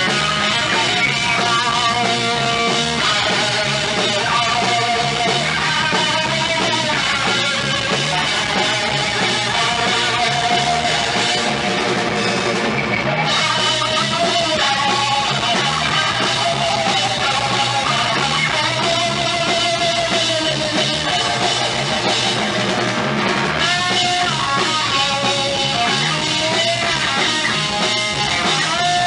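Live rock band playing loud: electric guitar, bass guitar and drum kit.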